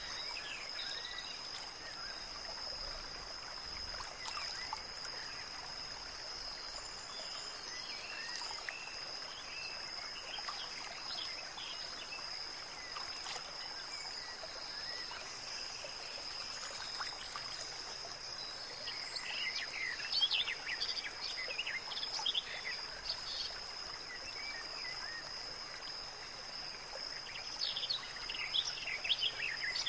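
Outdoor nature ambience: a steady hiss with a constant high tone, and clusters of short bird-like chirps that come in about two-thirds of the way through and again near the end.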